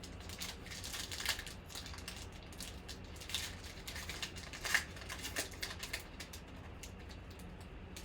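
Trading cards being handled and flipped through: irregular papery slides, flicks and light clicks as cards rub against each other and are set down, with the sharpest flick a little under five seconds in.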